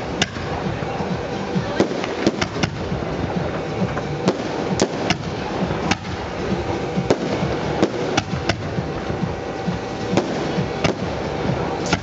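Aerial fireworks display: shells bursting in sharp bangs, irregularly, about one or two a second, over a continuous crackle from the glittering stars.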